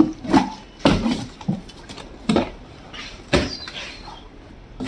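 Handling sounds from opening a box of shipped fish: about six sharp, irregular knocks and bumps with rustling in between.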